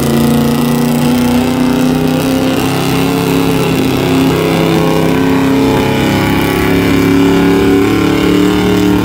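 Modified gas engine of a 4x4 pickup running hard at high, fairly steady revs under load as it pulls a weight-transfer sled.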